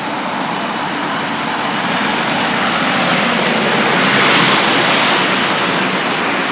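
A road vehicle passing close by: a rush of engine and tyre noise that builds to a peak about four and a half seconds in, then fades as it goes away.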